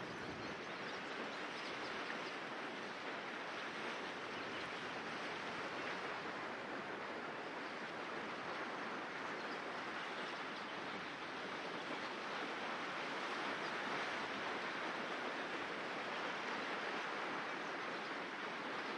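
A shallow river running over a stony bed, making a steady, even rushing.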